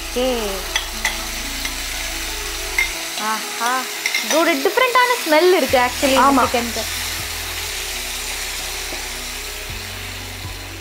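Curd-and-lemon-marinated chicken pieces tipped into hot oil in a non-stick frying pan, sizzling steadily as they are stirred with a wooden spatula. The sizzle eases slightly toward the end.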